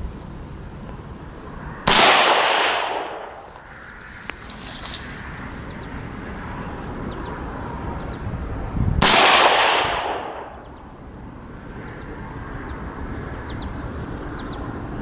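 Two rifle shots from a Del-Ton DT Sport AR-15 in 5.56 mm, about seven seconds apart. Each is a sharp crack that rolls off over about a second and a half.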